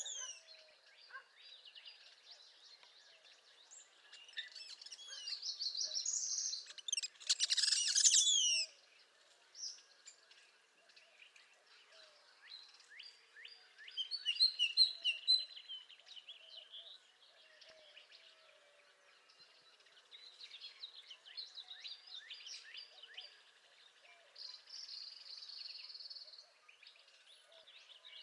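Northern parula singing its rising trilled song, among other birds chirping. The loudest moment is a burst of rapid notes about seven to eight seconds in.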